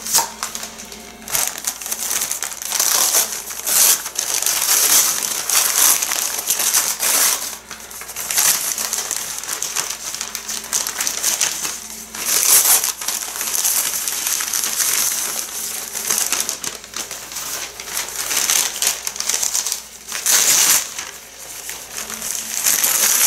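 Newspaper packing crinkling and rustling as it is handled and unwrapped from around a part, swelling into louder bursts at uneven intervals.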